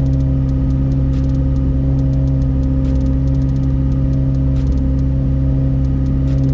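McLaren 765LT's twin-turbo 4.0-litre V8 held at a steady 2000 rpm for the car's electronic oil-level measurement, a constant even engine note.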